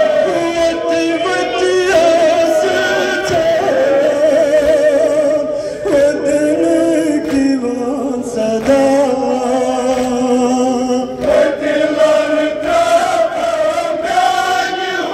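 A group of men chanting a Kashmiri noha, a mournful lament, in unison with sustained, wavering sung lines. Irregular sharp slaps are heard with it, from hands beating chests in matam.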